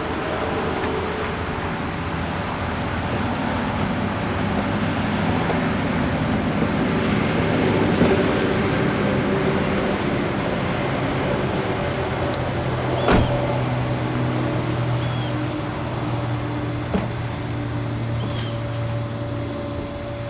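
A motor vehicle's engine running steadily, its hum shifting in pitch now and then, with a sharp click about 13 seconds in.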